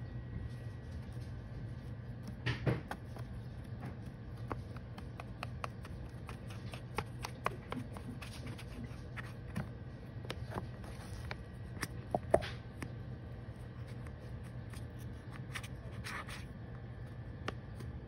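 Light handling noises (scattered small taps, clicks and scrapes) over a steady low hum, with sharper clicks about two and a half seconds in and around twelve seconds.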